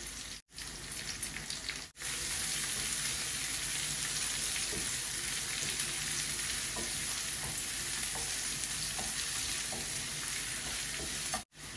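Sliced onions sizzling in hot oil in a stainless steel frying pan while being stirred with a wooden spatula, with a few faint taps of the spatula; the onions are being fried down towards golden brown for a curry base. The sizzle breaks off briefly twice near the start and once just before the end.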